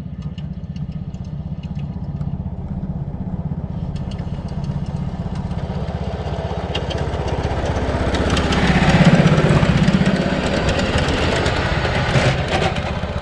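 Small engine of a ride-on miniature-railway locomotive running steadily as the train approaches and passes, growing louder to a peak about two-thirds of the way through. Near the end, wheels clack over the rails.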